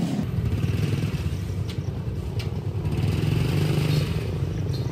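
Small motorbike engine of a homemade three-wheel cargo vehicle running as the vehicle pulls away slowly, a steady pulsing rumble with a few short clattering knocks.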